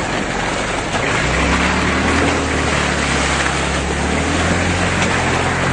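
Vehicle engine running as it drives along a muddy dirt track, with a steady hiss of tyres and wind over it. The engine hum becomes steadier and louder about a second in.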